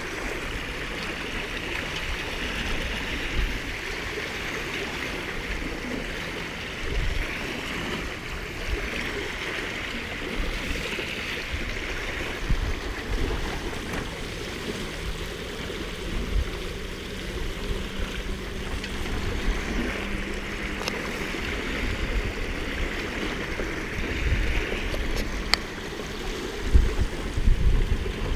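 Water rushing and hissing steadily past the hulls of a small sailing catamaran under way, with wind buffeting the microphone in low gusts that grow heavier near the end.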